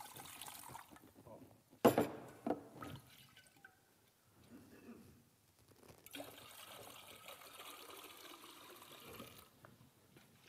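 Clear liquid poured from a glass jug into a large glass beaker: a steady splashing pour at the start and again for about three seconds in the second half. Two sharp knocks, the loudest sounds, come about two seconds in.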